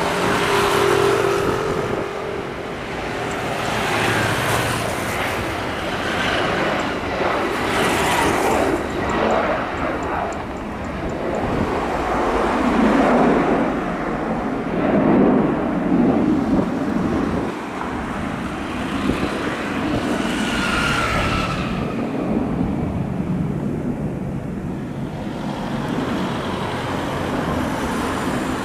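A Boeing 737-800 (BBJ2) jet's twin CFM56-7B turbofan engines at takeoff thrust: loud, continuous jet noise that swells and wavers as the plane rolls down the runway, lifts off and climbs away.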